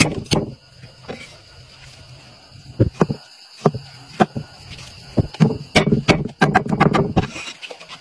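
Meat cleaver chopping chillies, garlic and lemongrass on a thick wooden chopping block: sharp knocks spaced out at first, then a fast run of chops for about a second and a half near the end.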